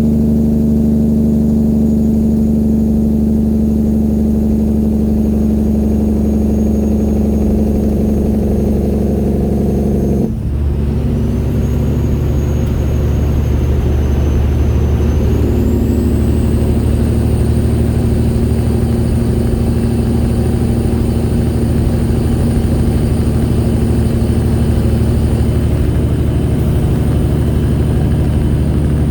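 Straight-piped diesel engine of a 1999 Peterbilt 379 semi truck running steadily, with a brief break about ten seconds in after which the engine note changes. A faint high whine rises a few seconds later and then holds.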